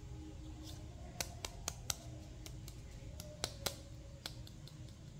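Sharp little clicks and taps of hard plastic as fingers handle a toy doll-size detergent bottle and pull it from its blister tray: four quick clicks about a second in, then two more around three and a half seconds and a last one shortly after.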